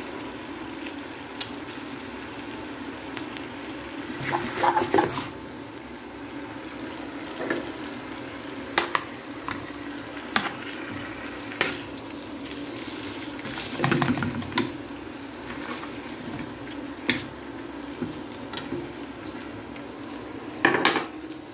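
Chicken breast mini fillets sizzling in hot oil in a non-stick frying pan, with a utensil knocking and scraping against the pan every second or two as the pieces are turned.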